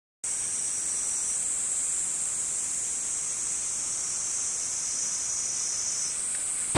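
Cicadas buzzing in a steady, high, sizzling hiss that cuts in abruptly just after the start; one layer of the chorus drops out about six seconds in.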